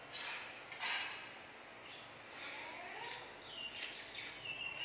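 A few short crackly rustles, loudest about a second in, as a cabbage-leaf wrap of krill is handled and bitten. Birds chirp in the background, and an insect's steady high trill starts near the end.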